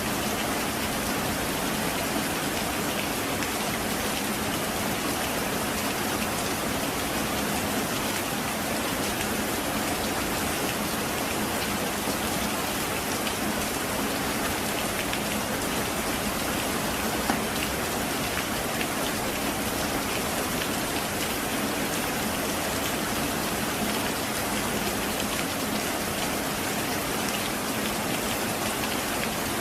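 Heavy rain falling steadily, an even hiss of countless drops that doesn't swell or fade, with one sharper drop standing out about seventeen seconds in.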